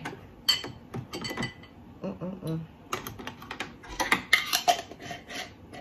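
Glass dishes and sauce jars clinking and tapping as they are handled and set down on the table, a string of short irregular knocks.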